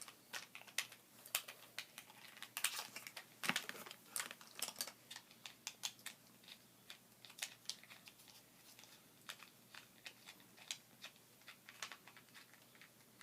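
Irregular light clicks and taps of small plastic toy tool-set parts being handled, busiest in the first few seconds and thinning out after.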